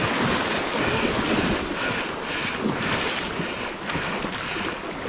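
Dog splashing through a shallow river and then swimming, water churning and rushing steadily, with wind buffeting the microphone.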